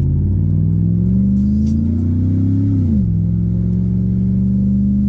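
A 5.3-litre V8 truck engine with a broken exhaust, heard from inside the cab as it accelerates. The revs climb for a couple of seconds, drop sharply about three seconds in as the transmission upshifts, then hold steady while cruising.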